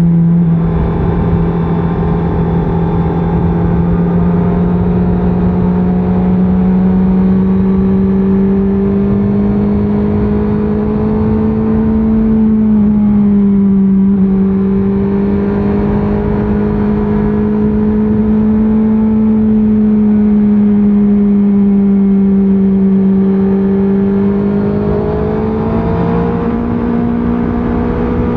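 2024 Honda CBR650R's stock-exhaust inline-four engine running under way at a steady cruise, its pitch wandering with the throttle: it steps down just after the start and again about halfway through, and climbs higher near the end.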